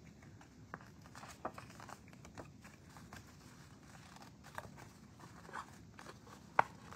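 Cardstock being folded by hand along its score lines: faint scattered paper crinkles and creasing rustles, with one sharp click near the end.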